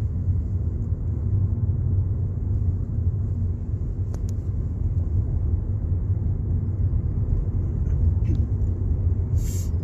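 Road noise inside a moving car's cabin: a steady low rumble of engine and tyres. A couple of faint clicks and a short hiss come near the end.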